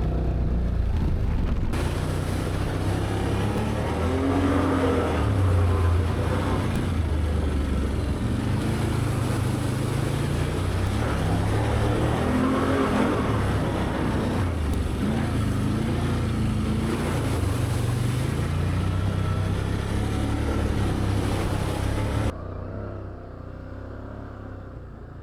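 Can-Am Outlander ATV's V-twin engine pulling along a rough trail, its pitch rising and falling as the throttle opens and eases, with a steady hiss over it from about two seconds in. Near the end the engine sound drops off suddenly as the throttle is let off to slow down.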